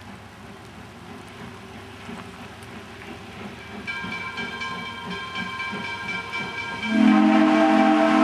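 Steam whistle of Wilmington & Western 0-6-0 locomotive No. 58 blowing as the train approaches, a chord of several notes starting about four seconds in. About seven seconds in it becomes much louder, with a deeper note added, over the faint rumble of the oncoming train.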